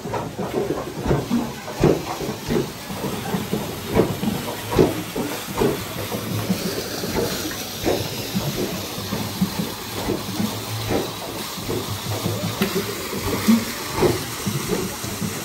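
Wooden trip hammers of a water-wheel-driven pounding mill knocking unevenly, a few knocks a second, over the steady rush of water pouring off the wheel.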